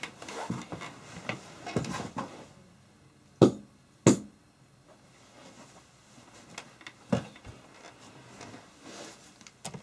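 An airsoft TX-style electric motor can struck against the floor to knock its end bell loose: some handling noise, then two sharp knocks about half a second apart and a third a few seconds later.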